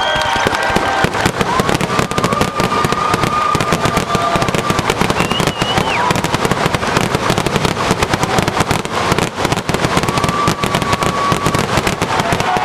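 Fireworks finale barrage: a continuous rapid stream of shell bursts and crackling comets, bangs overlapping with no gaps.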